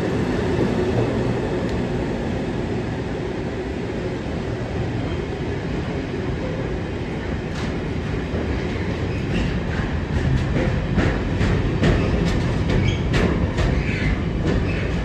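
Container freight train hauled by Class 90 electric and Class 66 locomotives passing close by: a steady low rumble, then from about halfway in a run of sharp clacks as the loaded container wagons roll over the rail joints.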